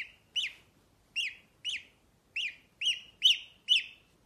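Gosling peeping: eight short, high peeps, about two a second, each rising and then falling in pitch.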